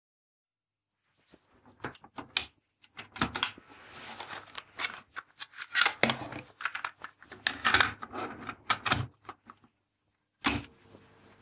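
Plastic clicks and rattles from a Hitachi D-85S cassette deck's door and a cassette being handled and loaded. About ten seconds in, a transport key is pressed with one sharp click, and a faint steady hum follows.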